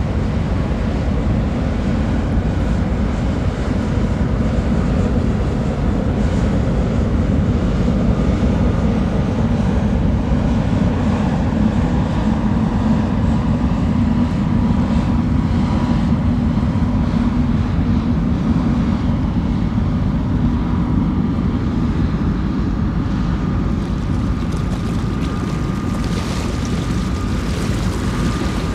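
Steady low rumble of a passing cruise ship's engines, with a faint steady hum on top, mixed with wind on the microphone. Small waves wash against the rocks along the bank.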